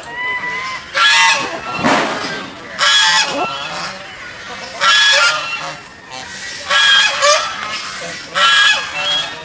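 Geese honking: a series of loud, harsh honks about every one to two seconds, with quieter calls in between.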